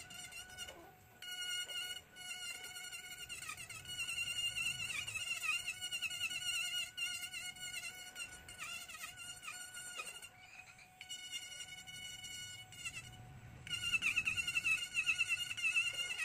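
Handheld electric rotary carving tool running at high speed, its burr cutting into ngọc am wood: a thin, wavering whine that dips as the bit bites and lifts, with short breaks about one, two, ten and thirteen seconds in, and louder near the end.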